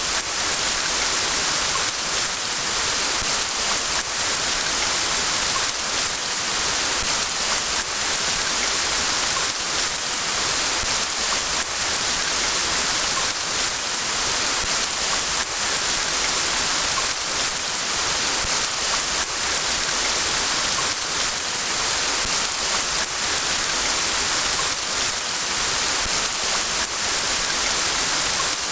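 Steady rain falling: an even, unbroken hiss of rainfall with faint individual drop ticks through it.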